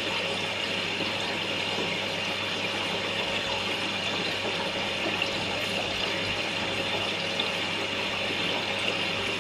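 Steady rushing water with a low, even hum from aquarium water circulation.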